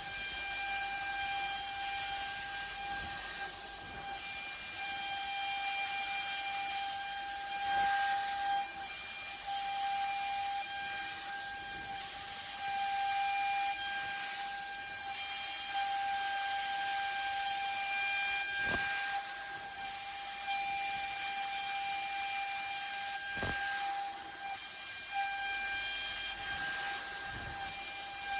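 CNC router spindle running, a steady high-pitched whine over a hiss. There are two sharp clicks in the second half.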